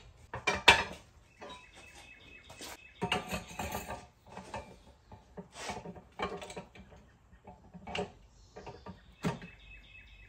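Steel parts of a manual tire changer knocking and scraping together as the mount/demount arm is fitted onto the centre post: a series of irregular metallic clanks and clicks with some ringing, the loudest about a second in.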